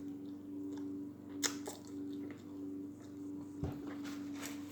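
Close-up mouth sounds of someone chewing a crunchy Cheetos-coated chicken sandwich: scattered wet smacking clicks, the sharpest about a second and a half in and again near the three-and-a-half-second mark. A steady low hum runs underneath.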